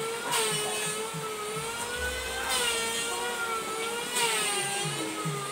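A small motor running steadily with a slightly wavering whine and a faint low pulse about three times a second, brightening briefly every couple of seconds.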